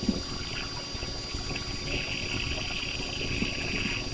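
Calbuco volcano erupting: a steady, rushing rumble from the ash column, with a hiss that grows stronger about halfway through.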